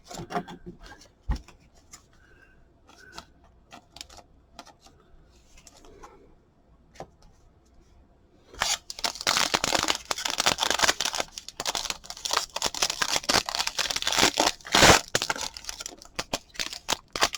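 Trading-card pack's foil wrapper crinkling and being torn open, a dense crinkly rustle that starts about halfway through, after a few quiet handling clicks.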